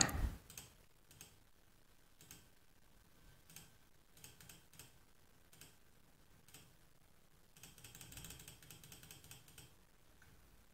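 Faint computer keyboard and mouse clicks: scattered single clicks, then a quick run of keystrokes about eight seconds in.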